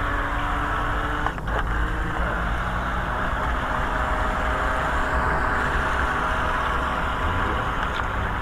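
Small electric motor of a Heng Tai HT-3832 radio-controlled boat running steadily, a continuous buzzing hum over a low rumble, dipping briefly about a second in.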